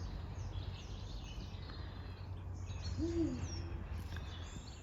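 Small birds chirping and singing, with a single short, low hoot-like call about three seconds in, over a steady low rumble.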